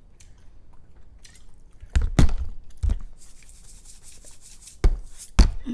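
Handling noises close to the microphone: a few sharp clicks and knocks, with a hissy rubbing sound lasting about two seconds in the middle.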